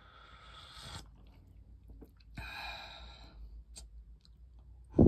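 A person drinking hot cocoa from a mug: two breathy, hissing mouth sounds about two seconds apart, then a loud low thump near the end.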